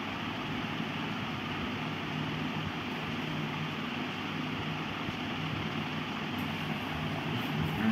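Steady background noise: an even hiss with a faint low hum, unchanging throughout.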